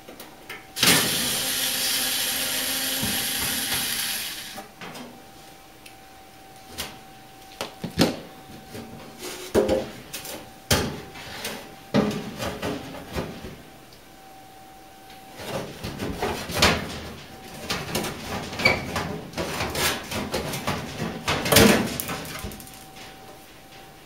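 A cordless drill-driver runs for about three and a half seconds, driving out a screw. Then a long run of knocks, clicks and rattles as the black plastic blower duct is worked loose and lifted off the back of the dryer cabinet.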